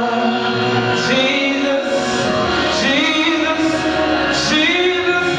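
A man sings a gospel praise song into a handheld microphone over instrumental backing, holding long notes that bend and glide in pitch.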